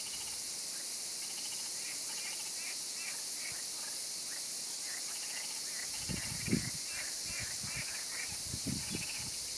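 Steady high insect chirring on a riverbank, with scattered short bird chirps over it. A few low bumps come about six and nine seconds in.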